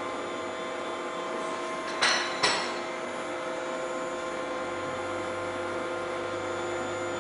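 CNC induction hardening machine running with a steady hum made of several fixed tones. Two sharp knocks about half a second apart come about two seconds in, and a deeper low hum joins about two-thirds of the way through.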